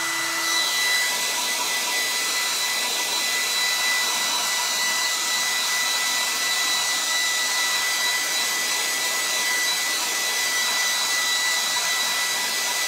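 Hair dryer running steadily: a loud rush of air with a constant high whine from its motor.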